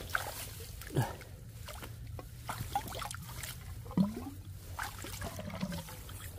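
Shallow water dribbling and splashing, with scattered small knocks and two louder gurgling splashes, about a second in and about four seconds in.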